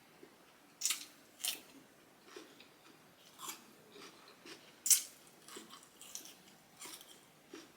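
Close-miked chewing of a mouthful of fresh cucumber with rice and turkey sausage: irregular crisp crunches about every half second, the loudest about five seconds in, between soft wet mouth sounds.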